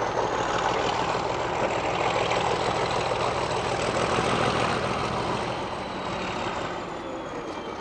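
Heavy diesel engine running with a deep drone and a high whine that rises and then falls; the whole sound eases off after about five seconds.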